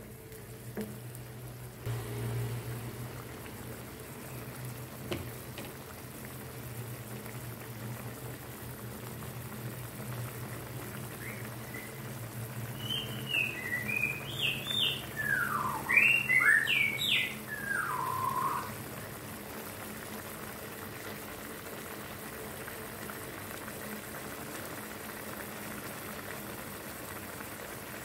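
Beef in chili sauce simmering in a frying pan: a steady soft bubbling with a low hum under it. About halfway through, a run of high bird-like chirps and whistles rises and falls for several seconds.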